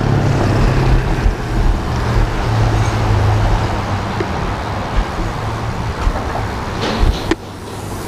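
Steady rush of wind and road noise heard from a moving bicycle, over a low engine hum from nearby motor traffic. There is a short sharp knock about seven seconds in, after which the rush drops a little.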